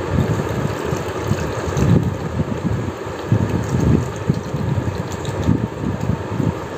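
Water pouring in a steady stream from a plastic bottle into a plastic container, with an uneven low gurgling.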